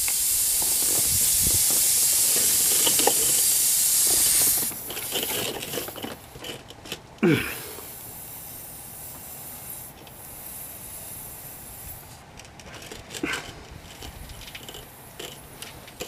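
Air hissing steadily out of the nail puncture in a light-truck tire around the plug-insertion tool, a sign the puncture is still unsealed; the hiss cuts off suddenly about four and a half seconds in. Light tool-handling clicks follow, with one brief loud thump about seven seconds in.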